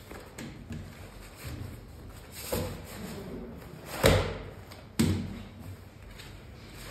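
Fabric shopping-trolley bag being fitted onto its folding metal frame: handling noise and knocks, with a loud thump just after four seconds in and a sharp knock about a second later.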